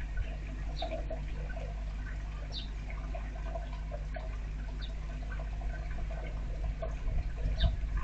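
Steady rain and dripping water, with a few short, high bird chirps scattered through it.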